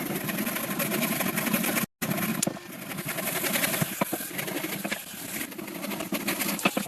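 A motor-driven machine running steadily with a fast, even rattle, cut off abruptly for a moment a little under two seconds in.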